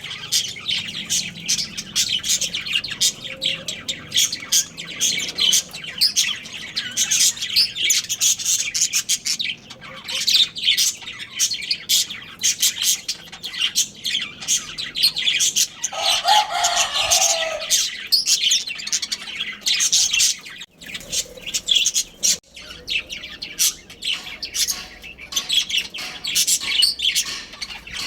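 Budgerigars chattering: a dense, continuous run of rapid high chirps and warbles from several birds at once, with a lower call standing out for a couple of seconds about sixteen seconds in.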